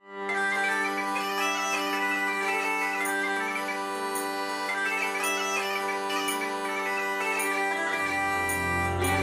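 Background music: bagpipes playing a melody over a steady drone, with a lower bass part coming in near the end.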